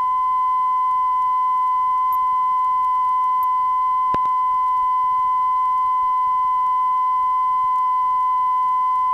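Steady 1,000-cycle test tone, recorded at 100% level on the right channel only, played from a calibration reel on a Sony TC-350 reel-to-reel tape deck, with fainter overtones above it. A brief click about four seconds in.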